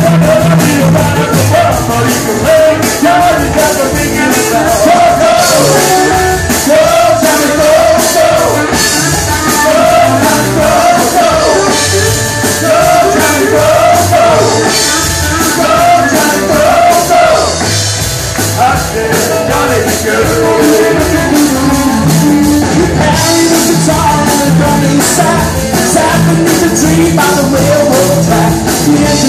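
A live blues band playing loudly, with electric guitars and drums, and a man singing.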